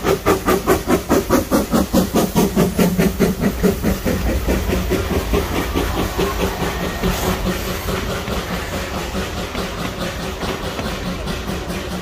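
NA class narrow-gauge steam tank locomotive passing close by, its exhaust chuffing about four to five times a second over hissing steam from the open cylinder drain cocks. About four seconds in the engine has gone by and the chuffing fades into the steadier rumble and clatter of the carriages rolling past.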